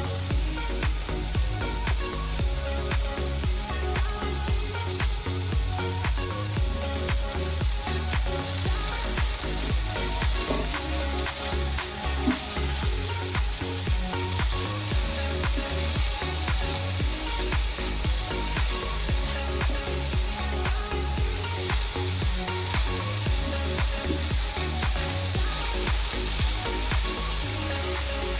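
Grated potato, onion, tomato and green chillies sizzling steadily in a hot non-stick frying pan, with a wooden spatula stirring and scraping through them.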